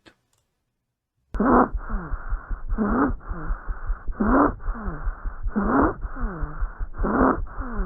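Recorded stridor, heard through a stethoscope: harsh pitched breath noise swelling five times, about once every second and a half, starting about a second in. It is the sign of an upper-airway obstruction such as a foreign body, glottic edema or laryngitis.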